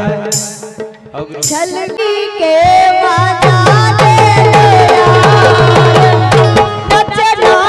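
Live Bundeli folk-song music: hand drums playing a steady beat of about three strokes a second under a sustained melody. It comes in fuller after a brief dip about a second in.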